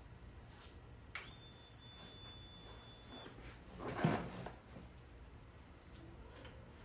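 A steady high-pitched whine that starts suddenly about a second in and lasts about two seconds, then a brief low thump a little later.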